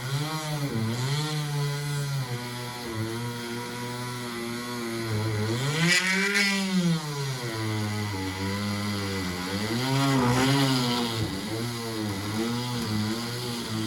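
Dremel rotary tool running as its bit cuts into the plastic of a pin hinge. The motor's pitch sags under load and rises whenever the bit eases off, most of all about six seconds in and again around ten seconds.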